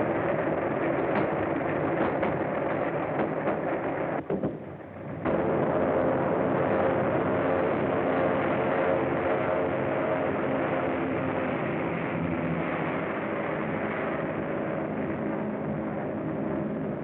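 Propeller aeroplane engine running loud and steady on an early-1930s film soundtrack, with crackling in the first few seconds and a brief break about four seconds in.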